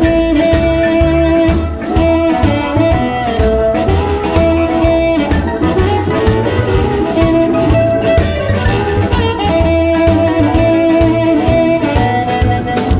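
Electric blues band recording: held harmonica or guitar notes and electric guitar lines over a steady drum beat and bass.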